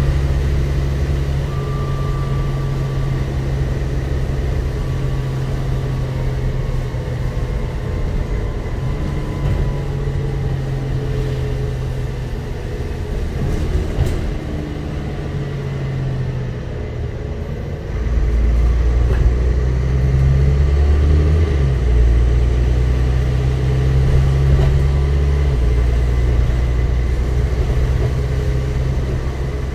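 Dennis Trident double-decker bus on the move, heard from inside the passenger saloon: a steady low engine drone that shifts pitch a few times and gets louder about eighteen seconds in, with a single knock about halfway through.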